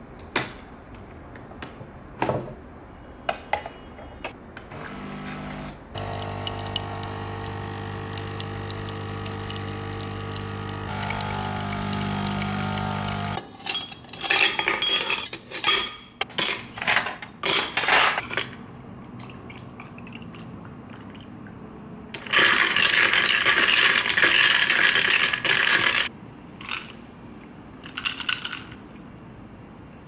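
Illy coffee machine's pump humming steadily for about seven seconds as it brews, then ice cubes and a metal spoon clinking against a glass, followed by about four seconds of steady rushing noise.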